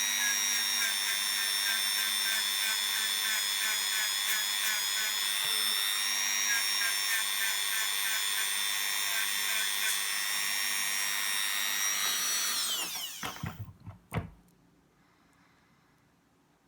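Small high-speed rotary tool running with a steady high whine, polishing model-train wheel rims. About 12.5 seconds in it is switched off, and the whine falls in pitch as the motor spins down. A single knock follows.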